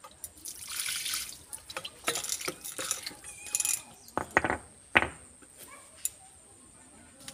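Water splashed and poured over a stone grinding slab (sil-batta) as it is rinsed by hand, then a few sharp knocks against the slab about four to five seconds in.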